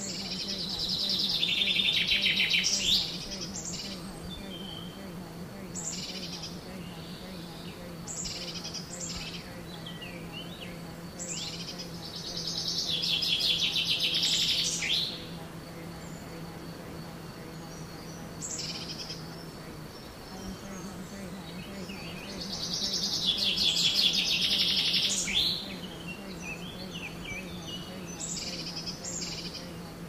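Songbirds singing: a loud, rapid trilled song about three seconds long comes three times, roughly ten seconds apart, with shorter high chirps and calls in between. A steady low hum runs underneath.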